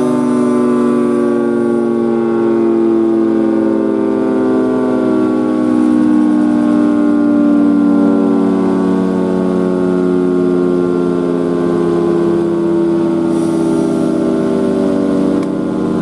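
Federal Signal 3T22 three-tone electromechanical tornado siren winding down, its chord falling slowly and steadily in pitch.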